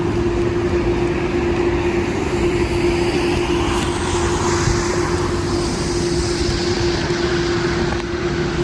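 Street traffic noise: a steady engine hum under a wash of road noise, with a vehicle passing that swells in the middle and fades near the end.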